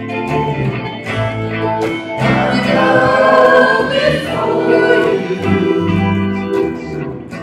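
Live worship music: a hollow-body electric archtop guitar being played while voices sing a gospel-style song, fuller and louder from about two seconds in.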